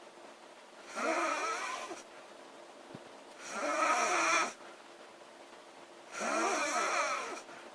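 A woman snoring, three snores each about a second long, two and a half seconds or so apart, each with a wavering pitch.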